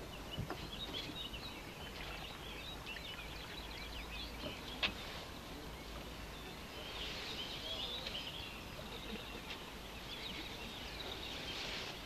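A faint chorus of many bird species singing and calling, with many overlapping high chirps and trills. A single sharp knock comes about five seconds in.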